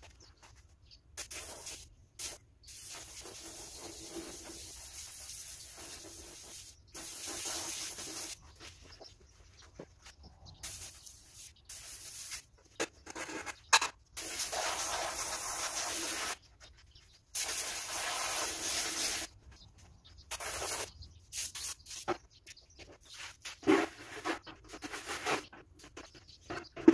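Water from a garden hose spraying and running in on-off bursts of a second to a few seconds each, with a few short knocks between the bursts.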